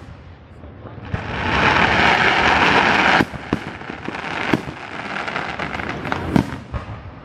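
Aerial fireworks going off: a loud, dense rush of noise builds for about two seconds and stops abruptly, followed by several sharp shell-burst bangs and lighter cracks.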